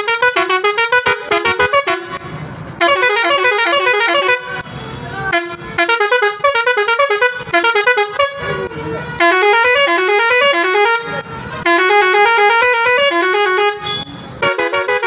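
Six-trumpet Roots musical horn set driven by a digital melody-maker, playing fast runs of notes that step up and down in rippling tune patterns. The tunes come in several bursts separated by short breaks while the horn is being tested.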